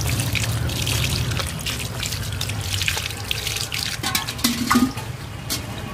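Water poured over a large tuna head, splashing and dripping as a hand rubs the fish clean.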